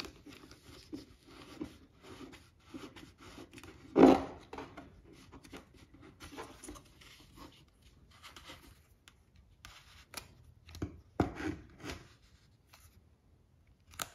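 Hand-tightening a plastic mounting nut onto the back of a small voltmeter set in a plastic dash gauge bezel: plastic rubbing, scraping and clicking. There is one sharp plastic knock about four seconds in, and a few more clicks a little before the end.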